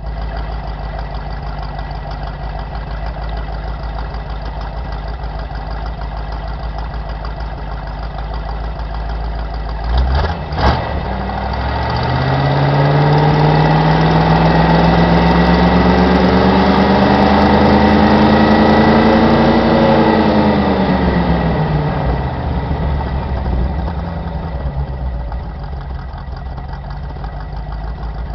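Ford Ranchero 302 V8 exhaust heard through its muffler: idling, two quick throttle blips about ten seconds in, then the revs climb slowly for several seconds, hold, and drop back to idle.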